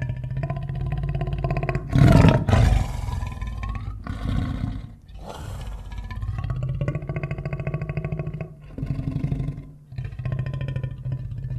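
Tiger growling: a run of low, rapidly pulsing growls, with a louder, harsher growl about two seconds in and brief pauses between growls.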